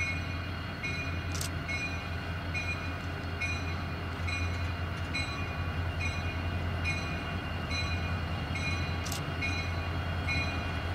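An EMD SD40-2 diesel locomotive's 16-cylinder engine rumbles steadily as it slowly approaches at the head of a loaded train. Over it a bell rings evenly, a little under twice a second, and two sharp clicks come about a second in and near the end.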